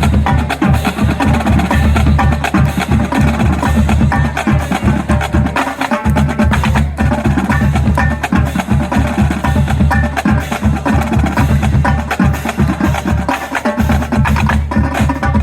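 A marching band drumline playing a cadence: rapid snare and rim clicks over steady, repeating bass drum hits.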